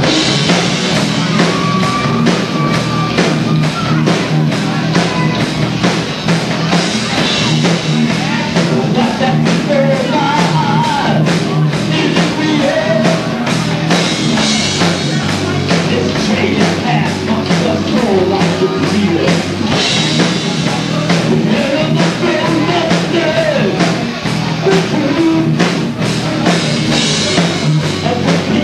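Live rock band playing loud: electric guitars over a pounding drum kit, with some singing.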